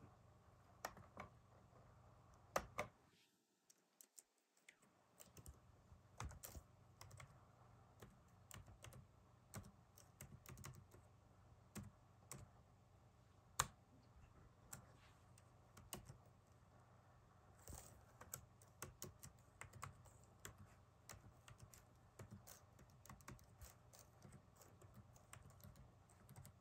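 Faint computer keyboard typing: irregular key clicks as a password is typed in, with a short pause about three seconds in.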